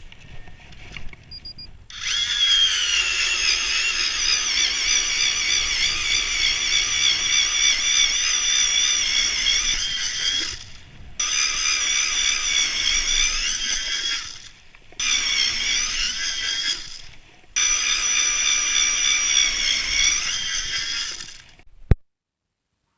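Power ice auger drilling through lake ice, its motor whining steadily under load. It starts about two seconds in, stops briefly three times, and cuts off near the end.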